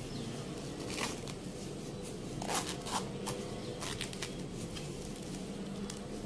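Hands handling a crocheted coin purse with a sewn-in zip: soft rustling with several short scratchy rasps, the loudest about two and a half to three seconds in, over a steady low hum.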